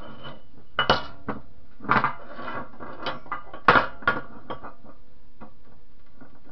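Steel puller jaws and a splined steel axle shaft knocking and scraping together as they are fitted and worked by hand: a handful of sharp metallic clanks with scraping between them, the loudest a little past halfway. The jaws are being checked for a tight, wobble-free fit on the shaft.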